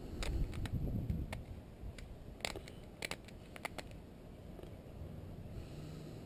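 Parts of a water heater control box being worked apart by hand: a run of about eight sharp clicks and snaps with handling rumble over the first four seconds, then only faint background.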